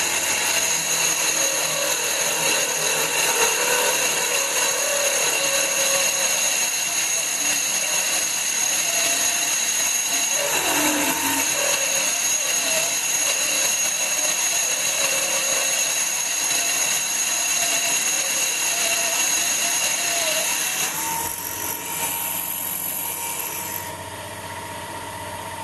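Belt-driven 775 DC motor power spindle running with a steady high whine while its 3/16-inch drill cuts dry into cast iron. The sound changes and drops in level near the end as the cut finishes.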